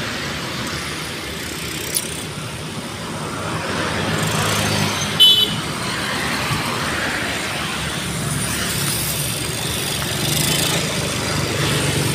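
Road traffic passing by, with vehicles sweeping past in swells of noise. About five seconds in comes a short, high-pitched horn beep, the loudest moment.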